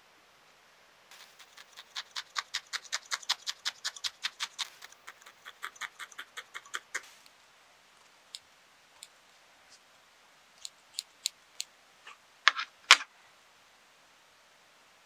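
Small curved craft scissors snipping wool felt: a quick, even run of crisp snips, about five a second for some six seconds, then a few single snips, the loudest two close together near the end.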